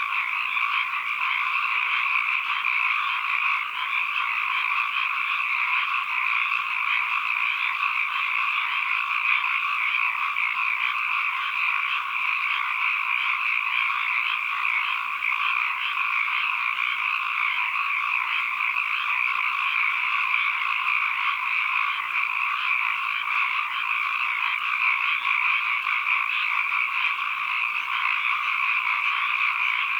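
Dense chorus of many frogs calling together, a steady, unbroken din with no pauses.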